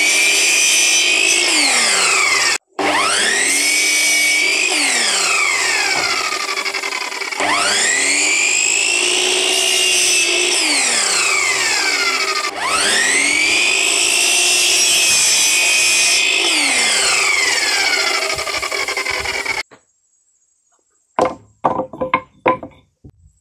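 Compound miter saw motor spinning up to a high whine and winding back down about four times as it crosscuts a green branch into short lengths. Near the end the saw stops suddenly and a few sharp wooden knocks follow as the cut branch pieces are set on a wooden slab.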